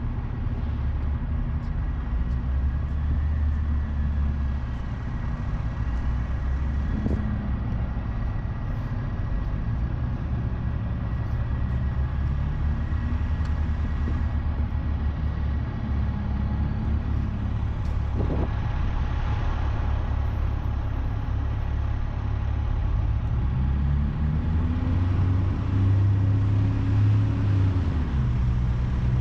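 City bus engine running at the curb, a steady low rumble with a faint whine. Near the end the engine's pitch rises, holds for a few seconds and drops back.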